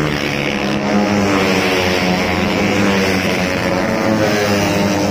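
Tuned 130cc automatic scooter racing engines running at high revs as the bikes race past, their pitch rising and falling through the corner.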